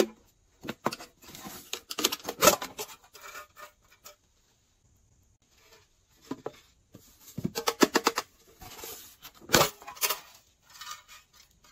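Hands handling cat-shaped slime containers: a sharp click at the very start, then two long runs of clicking, tapping and crinkling, with a pause of about two seconds between them.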